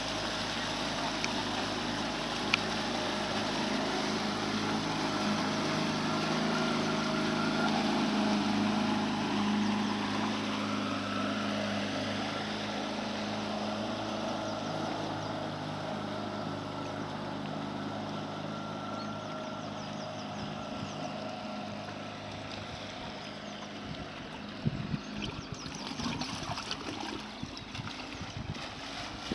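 A small river cruiser's outboard motor running steadily under way, with the wash of water, louder about a third of the way in and then fading as the boat moves off. Gusts of wind on the microphone come in near the end.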